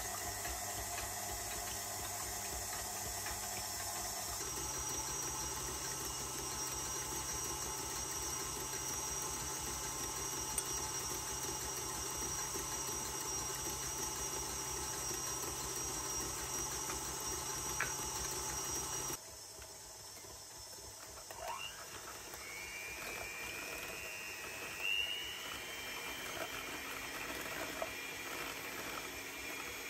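KitchenAid Artisan stand mixer running with its wire whisk whipping egg whites, a steady motor hum whose pitch steps up about four seconds in. About two-thirds of the way through it cuts off suddenly and an electric hand mixer takes over, its beaters whisking egg yolks with a thin, higher whine.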